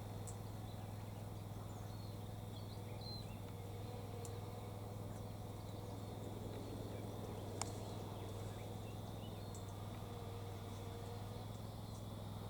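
Quiet outdoor background: a steady low hum with a faint wavering drone in the middle, broken by a few faint sharp ticks, the clearest about two thirds of the way through.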